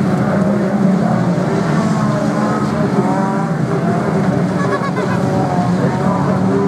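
A pack of 2-litre Ford Mondeo banger racing cars running and revving together around a shale oval, a steady loud mass of engine noise with pitches that rise and fall as the cars accelerate and lift off.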